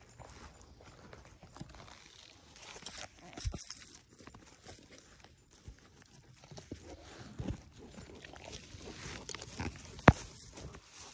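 Irregular crunching and rustling in dry leaves and grass on a dirt trail, mixed with the knocks and scrapes of a handheld phone being moved about, growing busier near the end with one sharp knock about ten seconds in.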